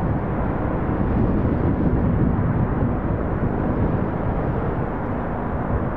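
Steady low rumble of diesel freight locomotives running, with a faint engine hum.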